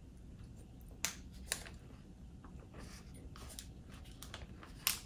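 Scattered sharp clicks and crackles as a chocolate protein bar is chewed and its plastic wrapper handled: two clear clicks about a second in, fainter ones in the middle and a louder one near the end.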